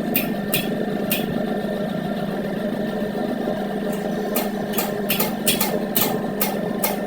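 Steady motor hum with a series of sharp clicks: a few in the first second or so, then about two to three a second from around four seconds in.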